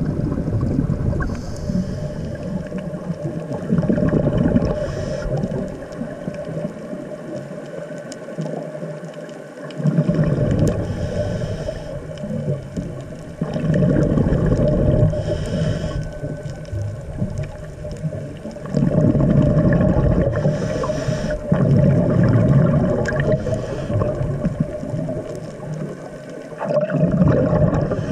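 Underwater bubbling and gurgling from a scuba diver's regulator breathing, surging every four to six seconds as exhaled bubbles rush out, with a steady hum underneath in the quieter gaps.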